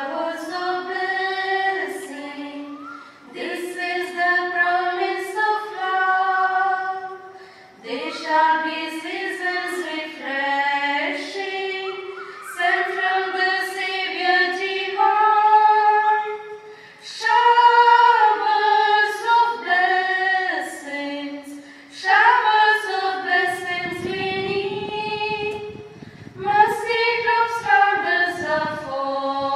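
Women's voices singing a prayer song together at a microphone, unaccompanied: a slow melody in long held notes, broken by short pauses for breath.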